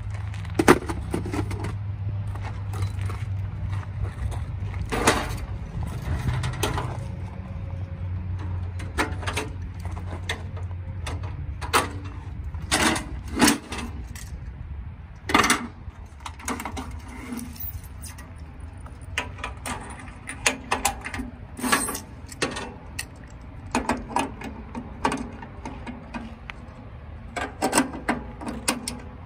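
Clicks, clanks and knocks of gear being handled and a metal range cart being folded down, a scattered run of separate sharp strokes, a few much louder than the rest. A low rumble underlies the first third.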